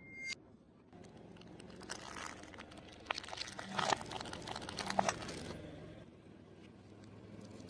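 Close-up crunching and crackling of someone chewing crispy fried food, with a few sharper cracks in the middle, over a faint low hum.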